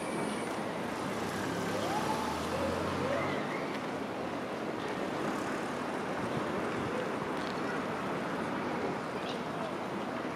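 Steady road traffic noise in a town street, with no single loud event.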